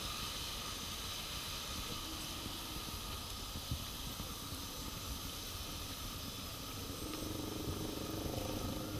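Steady hiss of heavy rain falling on pavement, puddles and trees.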